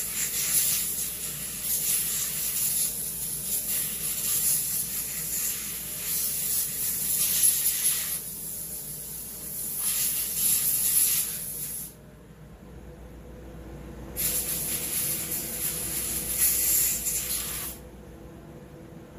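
Compressed-air blowgun hissing in several long blasts with short pauses, blowing dirt off chainsaw parts; the air cuts off near the end.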